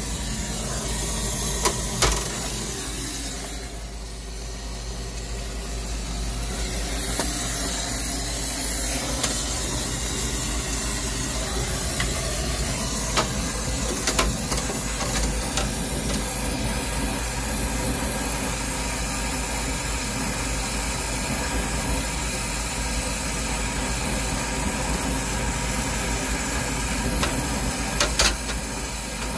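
Brazing torch flame hissing steadily while it heats the brazed copper joints of a freezer's expansion valve to unsweat them. The hiss dips briefly a few seconds in, and a few sharp clicks come through.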